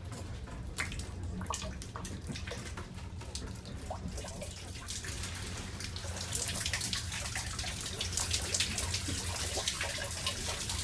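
Rainwater leaking through a train carriage's ceiling, pouring and dripping into the compartment with many sharp drips and splashes, growing louder about halfway through. A steady low hum runs underneath.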